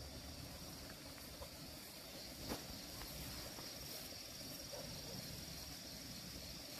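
Steady high-pitched chorus of insects in summer vegetation, with one faint knock about two and a half seconds in.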